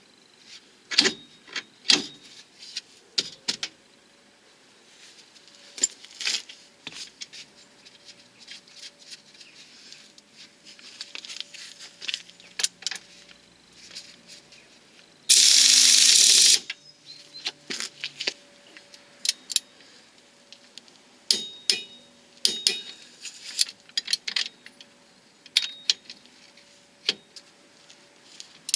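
Metal hand tools clinking and clanking against steel suspension and steering parts, with irregular sharp clicks, as a track rod end is refitted. About halfway through, a loud, even rush of noise lasts just over a second.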